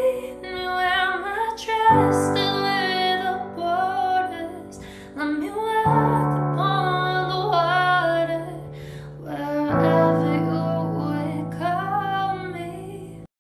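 Slow song, a woman singing over sustained chords that change about every four seconds; the music cuts off suddenly just before the end.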